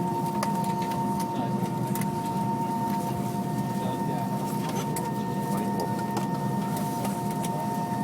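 Steady cabin hum of an Airbus A320 taxiing after landing, its IAE V2500 engines at idle, with constant high whining tones and a few faint clicks.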